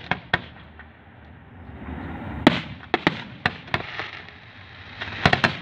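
Fireworks display: aerial shells bursting in a series of sharp bangs, the loudest about two and a half seconds in, with a quick run of bangs near the end.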